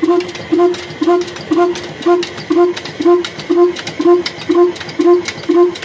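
Ruston horizontal diesel engine running steadily at slow speed: a popping exhaust beat about twice a second, with sharp clicks of the valve gear between beats.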